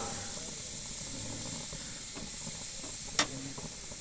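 Thin beef steak sizzling on the hot grate of a gas grill, a steady hiss, with one sharp click about three seconds in.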